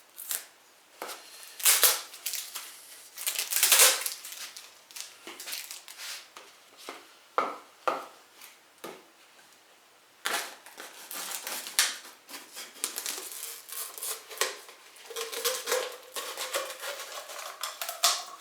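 Thin plastic water bottle crackling and crunching in irregular bursts as it is cut open to make a scoop.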